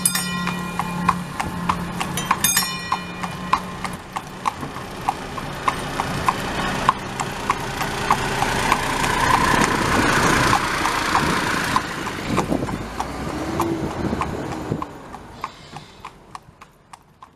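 Steady clip-clop of hooves, about three knocks a second, with a rush of noise that swells in the middle and dies away; the whole sound fades out near the end.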